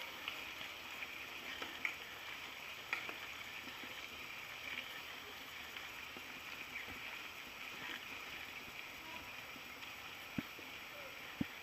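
Mountain bike rolling over a rough dirt trail, heard from a camera mounted on the bike: a steady hiss of tyres and movement, broken by a few sharp rattling knocks from bumps, twice near the start and twice near the end.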